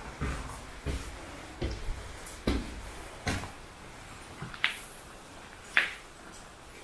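Footsteps walking slowly, about one step every 0.8 seconds, followed by two sharper, higher-pitched scrapes underfoot.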